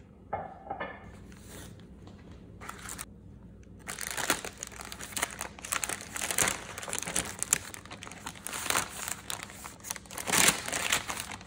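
Parchment paper crinkling and rustling as it is unfolded and peeled back off a wrapped slab of nougat: a few light rustles at first, then steady, louder crinkling from about four seconds in, loudest near the end.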